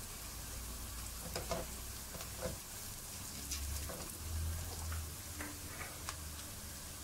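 Onions, green chillies and spices frying in oil in a nonstick wok with a steady sizzle. A wooden spatula scrapes and clicks against the pan about once a second as the masala is stirred.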